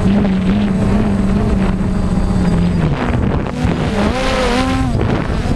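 Quadcopter drone's motors and propellers buzzing close to the onboard microphone. The buzz holds a steady pitch, then about three seconds in it shifts, and its pitch swells up and falls back as the motors change speed to tilt the drone.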